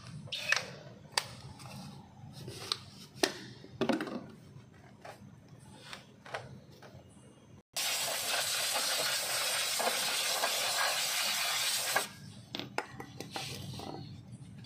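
Aerosol spray can sprayed through its straw nozzle onto a drum brake backing plate: a steady loud hiss that starts abruptly about halfway through and cuts off about four seconds later. Light metallic clicks and taps of parts being handled come before and after it.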